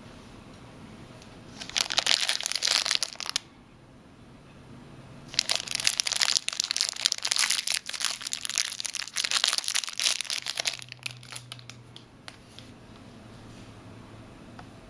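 Thin plastic packaging sleeve crinkling as it is unwrapped by hand: a short burst about two seconds in, a longer stretch from about five to eleven seconds, then a few light clicks.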